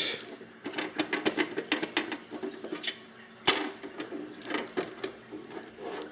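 A small plastic plant basket being pushed into a hole in a plastic hydroponic grow deck and turned, making irregular light clicks and taps, with a couple of sharper clacks midway.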